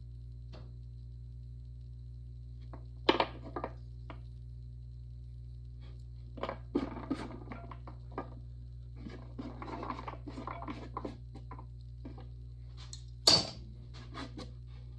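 Small knocks and scrapes of hands and tools working on a wooden board: a sharp knock about three seconds in, a run of light scraping and rustling as cut-out clay plugs are swept off the board, and a louder knock near the end as the small porcelain cup is set down on the wood. A steady low hum runs underneath.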